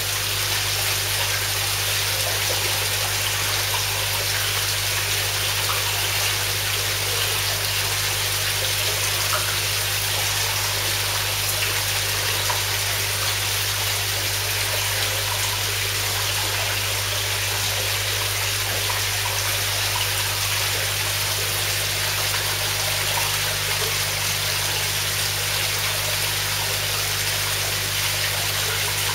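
Steady splashing rush of running water in a koi pond, with a steady low hum underneath.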